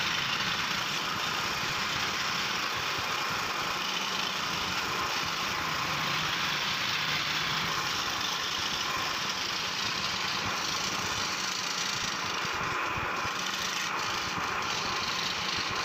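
Electric jigsaw running steadily, its narrow blade cutting out fretwork lettering in a wooden panel.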